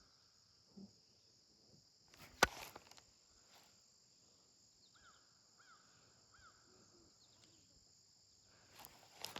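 Insects buzzing steadily at a high pitch, with one sharp click about two and a half seconds in and a few faint short chirps, like a small bird, in the middle.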